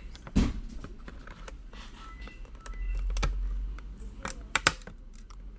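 Plastic clips of a Samsung Galaxy Tab T320's back cover snapping and clicking as the cover is pried away from the frame. There is one sharp snap about half a second in and two quick ones near the end, with some handling noise between.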